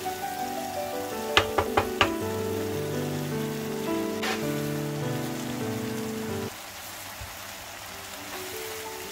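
Tomato and pepper sauce sizzling in a frying pan over background music. About a second and a half in, four quick sharp knocks, the wooden spoon tapped against the pan, and one more single knock a few seconds later.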